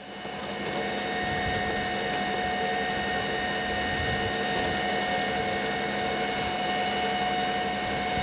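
A fire engine running its water pump at a steady speed, a continuous machine noise with a steady whine over it.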